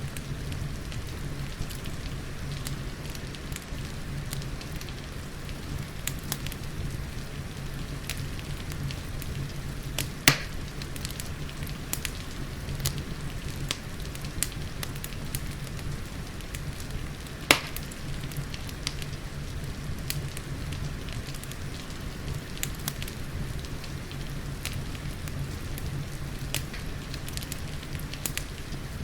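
Wood fire crackling with many small scattered clicks and two louder sharp pops, about ten and seventeen seconds in, over a steady hiss of rain and a low rumble.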